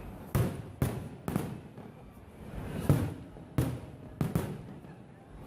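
Fireworks display: about six firework shells bursting in the sky at irregular intervals, each a sharp bang that trails off quickly.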